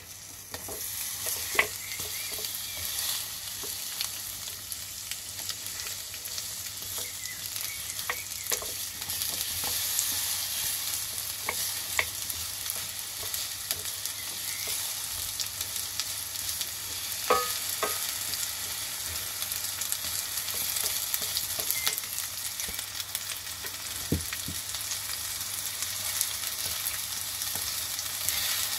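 Apple wedges sizzling in a hot nonstick frying pan. The sizzle starts just as they are tipped in and carries on steadily, while a wooden spatula turns them with a few sharp knocks and scrapes against the pan.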